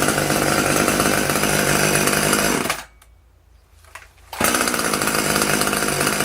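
Brand-new Husqvarna T540 XP top-handle two-stroke chainsaw running steadily on its first run out of the box, broken by a sudden gap of about a second and a half near the middle before the same steady running resumes.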